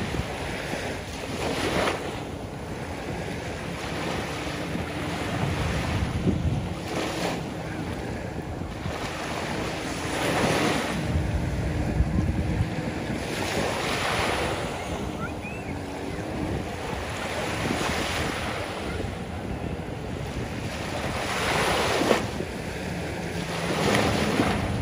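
Small waves breaking and washing up a sandy beach, swelling every few seconds, with wind rumbling on the microphone.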